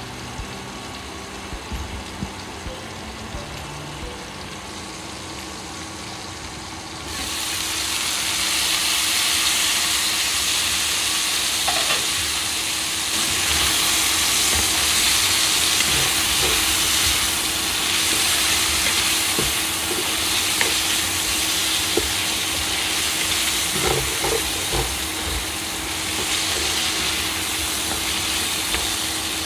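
Chicken and onion frying in a nonstick pan on an induction cooktop. For the first seven seconds there is only a quieter hum, then a loud, steady sizzle starts suddenly as the glass lid comes off. A plastic slotted spatula stirs and scrapes the food in the pan, with small clicks.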